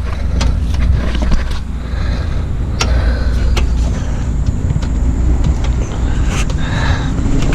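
Scattered metal clicks and light knocks from fittings and tools being handled while refrigerant lines are reconnected to an A/C compressor, over a steady low rumble.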